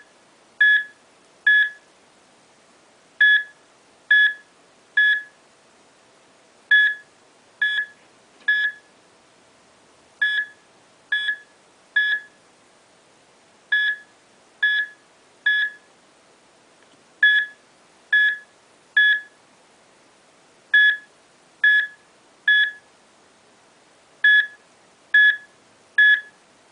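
Electronic beeping: short high-pitched beeps in groups of three, about a second apart, each group repeating every three and a half seconds, over a faint steady tone.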